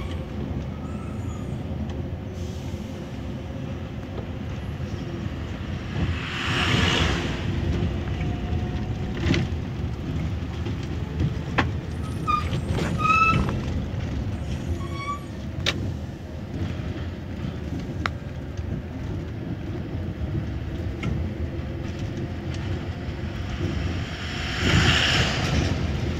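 Scania bus running at speed, heard from the driver's cab: steady engine and road noise with rattles and knocks. Two hissing bursts of air, one about seven seconds in and one near the end, fit the air brakes, and a few short high tones sound in between.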